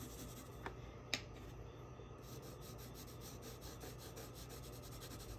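White colored pencil shading on blue construction paper: a faint scratchy rubbing of the pencil tip in short repeated strokes, with two small ticks about a second in.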